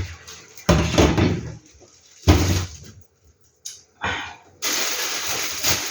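Kitchen clatter: a couple of sharp thuds, like a door or cupboard being shut. About four and a half seconds in, a tap starts running with a steady rush of water.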